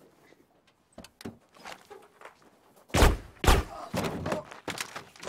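Two heavy thunks about three seconds in, followed by a run of footsteps on the ground.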